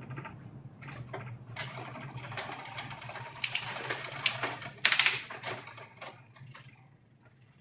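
Bicycle drivetrain clicking and ticking in irregular bursts as the front derailleur is being adjusted, with a denser run of rapid clicks from about three and a half to five seconds in.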